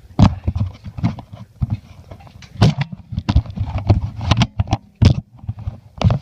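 A quick, irregular run of knocks and thumps, heavy and close, with the loudest hits about a second in, near three seconds and around five seconds.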